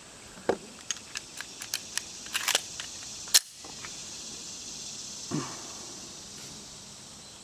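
A series of light metallic clicks and rattles from handling a 1911 pistol and its ammunition between shots, ending in a sharper click about three and a half seconds in.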